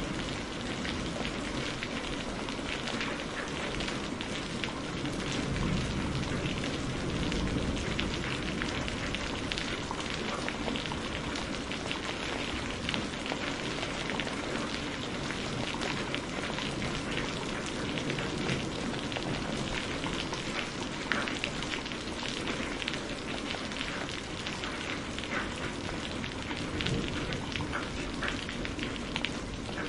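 Steady rain falling, made of a dense hiss of countless close individual raindrops on hard surfaces, with a low rumble underneath.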